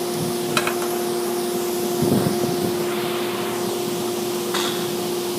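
Steady hum and hiss of a running fan or similar small motor, with a few light clicks and a short scrape about two seconds in from parts being handled.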